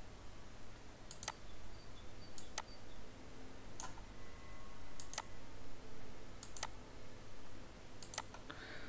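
Computer mouse clicking, faint: about six clicks spaced a second or more apart, several heard as a quick press-and-release pair, over a low steady hum.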